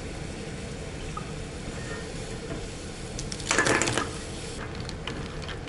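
Frozen blood clams being tipped into a pan on the stove to boil, their shells clattering against the metal strainer and pan in a burst about three and a half seconds in, over a steady hiss and hum.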